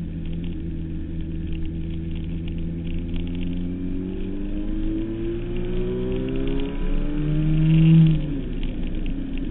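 Suzuki Hayabusa 1300's inline-four engine running under load, steady at first, then its pitch rising steadily from about four seconds in as it accelerates. It gets louder up to a peak near the end, then the pitch drops sharply.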